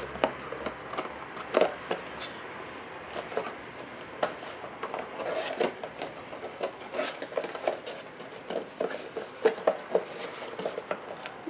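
A cardboard box and its folded cardboard insert being handled and pulled apart: rubbing and scraping with many irregular small clicks and taps.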